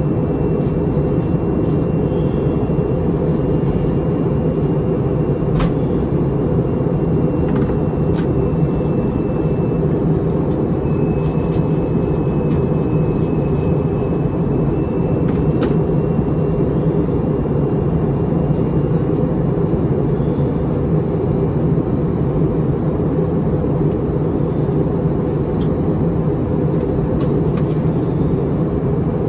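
Airbus A321-231 cabin noise in flight: a steady, even rush of airflow and engine noise, heaviest low down, with a faint high tone now and then and a few faint clicks.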